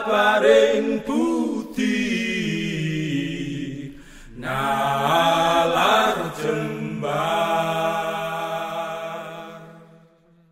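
A solo voice chanting two long, wavering, drawn-out phrases over a steady low drone, with a brief break about four seconds in. It fades out near the end.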